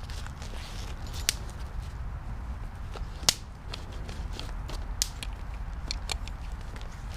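Small gear items being handled and set down: a few separate sharp clicks and taps over a low steady rumble, the loudest about three seconds in.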